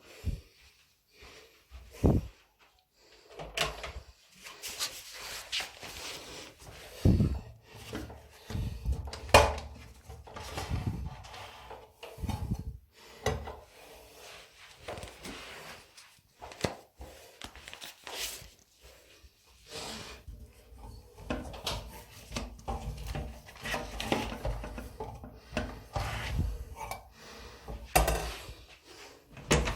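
Irregular knocks, bumps and rubbing of household objects being handled, like drawers, cupboard doors and wooden items being opened, shut and moved about.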